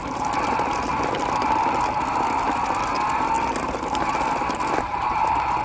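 Toy truck engine drone, a steady whirring hum that climbs a little in pitch and starts over every two to three seconds as the toy dump truck is pulled along.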